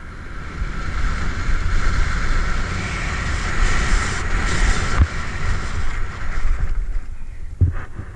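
Wind buffeting the microphone over the hiss and scrape of skis carving through snow on a fast off-piste descent. Two short thumps, about five seconds in and near the end.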